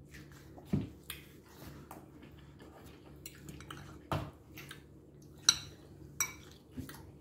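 Metal fork clinking against a glass bowl as salad is scooped up, with about six sharp clinks, the loudest about five and a half seconds in.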